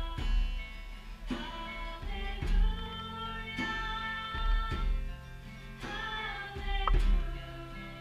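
A solo voice singing a slow Christmas song over acoustic guitar accompaniment, with chords struck about every two seconds.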